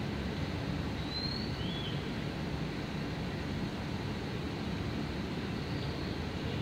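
Steady low background rumble, with two brief high chirps a little after a second in.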